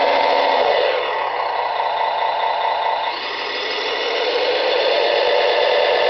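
Simulated diesel engine sound from a Servonaut SMT sound unit, played through a small speaker inside a radio-controlled track loader. The engine note drops about a second in, dips further just past the middle, then rises again.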